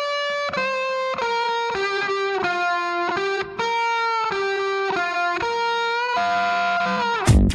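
Music: an electric guitar with effects plays a slow melody of held notes, changing pitch about every half second, with no drums or bass underneath.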